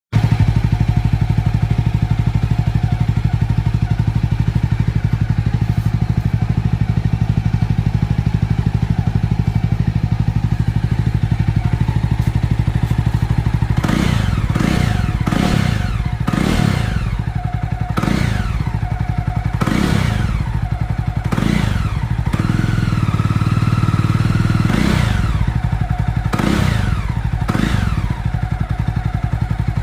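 Jawa Classic's single-cylinder engine breathing through a Red Rooster aftermarket silencer. It idles steadily for about the first half, then is blipped through a series of short revs that rise and fall, one held a little longer.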